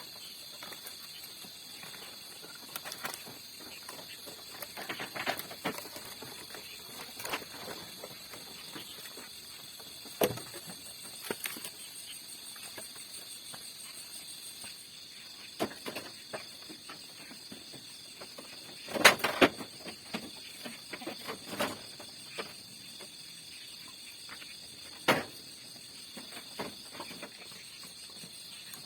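Steady high-pitched insect buzzing outdoors, with scattered short knocks and rustles of things being handled; the loudest knocks come a little past the middle.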